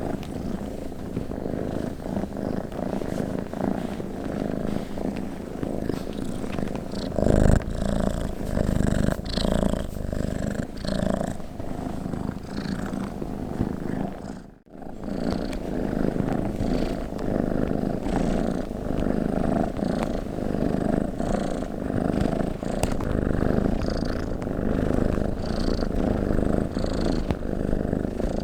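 Domestic cat purring close to the microphone, a steady low rumble that swells and eases with each breath. A brief knock about seven seconds in, and a short break near the middle.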